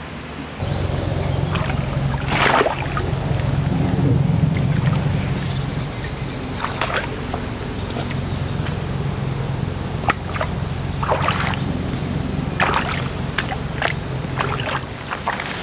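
Rubber boots splashing and sloshing through a shallow muddy creek, then rustling through tall grass, in scattered separate splashes and steps. Under them a steady low motor hum comes in about half a second in.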